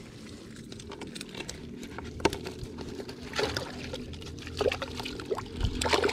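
River water pouring and dripping off a fish keepnet as it is pulled out of the river, with several sharp splashes, the last near the end as the net goes into a plastic bucket of water.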